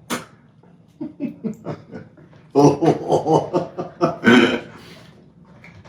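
A man laughing: a few quick soft chuckles about a second in, then two louder bursts of laughter near the middle.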